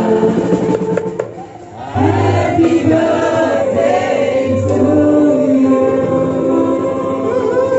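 Several voices singing together with music, like a choir. The level dips briefly about a second and a half in, and the singing comes back louder at about two seconds.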